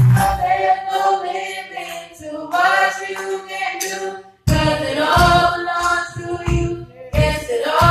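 Live gospel band performing a Haitian Creole praise song: voices singing together with the drums and bass dropped out, then the full band with a steady drum beat comes back in about halfway through.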